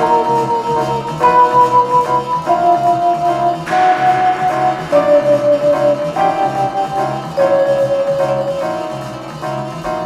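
Background music from a cartoon score: a slow melody of long held notes, changing about every second, over a quick, even pulsing accompaniment.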